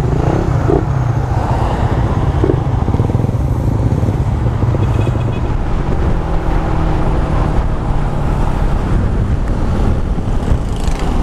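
Suzuki Raider 150 Fi motorcycle on the move, its engine running steadily under a constant rush of wind noise on the camera's microphone.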